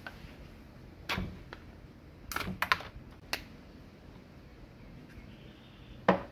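Sharp clicks and knocks of a hard plastic chainsaw part and pliers being handled against the saw body: one about a second in, a quick cluster of clicks around two and a half seconds, another just after three seconds, and a loud knock near the end.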